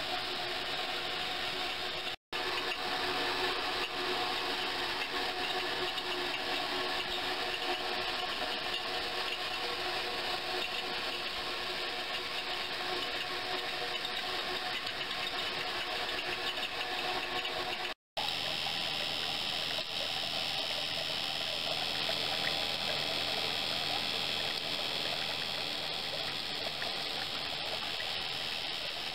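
Water pouring steadily from a stainless-steel vessel into a stainless tank of water, with a steady mechanical hum of several tones underneath. It cuts out briefly twice, and after the second break the hum is lower.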